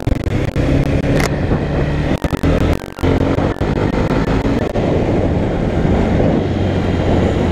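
Mahindra Mojo's 295 cc single-cylinder engine running under way, its exhaust note loud with the dB killer fitted, with a brief drop about three seconds in.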